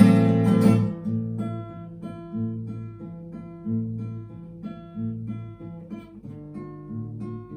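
Acoustic guitar music with no singing: a loud strummed chord at the start dies away within the first second, then single plucked notes follow in a steady, repeating picking pattern.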